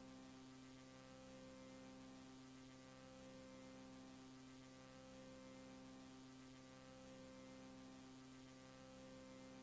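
Near silence: a faint steady electrical hum with hiss from the VHS tape playback. One low tone in the hum drops out briefly about every one and a half seconds.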